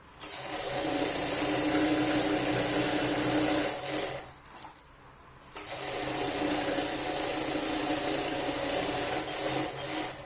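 Industrial sewing machine running as it stitches a seam, in two steady runs of about four seconds each with a pause of about a second and a half between them.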